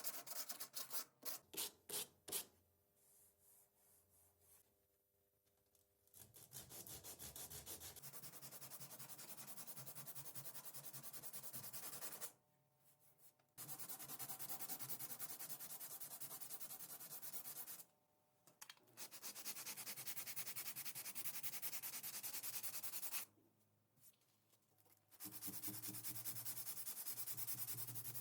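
Sanding on a car body panel: a run of separate rasping strokes, then long stretches of steady dense sanding broken by short pauses.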